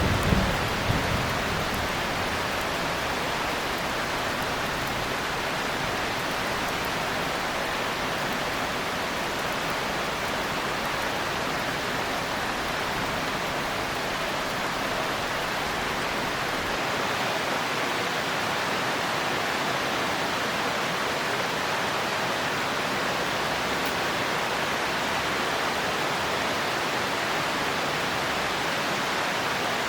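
Heavy rain falling steadily, an even hiss. The tail of a thunderclap rumbles low in the first second or two, with a couple of sharper cracks, then fades.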